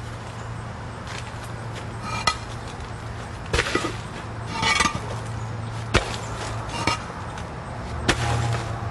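Irregular knocks and scrapes of concrete cinder blocks being shifted and set, about six sharp hits spread unevenly, some with a brief ring, over a steady low hum.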